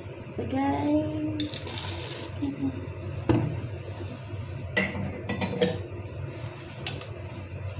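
Baking chips tipped into a stainless steel mixing bowl of cookie dough with a short rattling rush, then a wire whisk clinking against the steel bowl: several sharp ringing taps around five seconds in.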